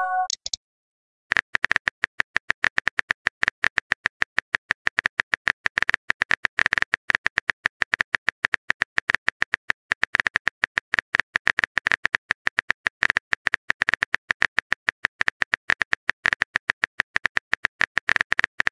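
Rapid keyboard-tap clicks of a texting app's typing sound effect. They start about a second in and run on quickly and evenly until just before the end.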